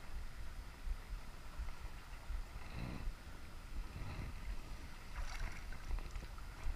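Wind buffeting the microphone as a steady low rumble, with a few soft splashes of river water around the middle.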